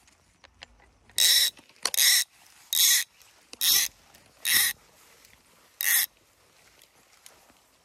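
A fly reel's click-pawl ratchet buzzing in six short, evenly spaced bursts as line runs through it.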